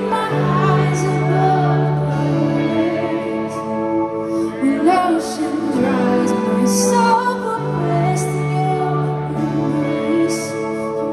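Live band playing a slow worship ballad, a woman singing the lead melody over long-held low bass notes, keyboards and guitars.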